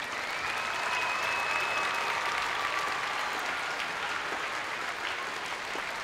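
An arena audience applauding, breaking out all at once. A piercing whistle rises and holds for about the first two seconds.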